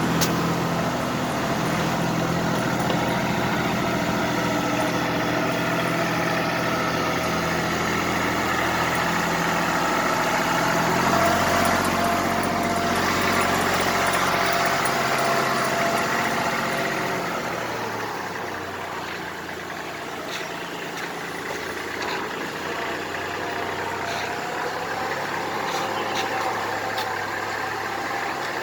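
Kubota GL27 tractor's diesel engine running steadily, picking up a little about eleven seconds in, then settling to a lower, quieter speed from about eighteen seconds.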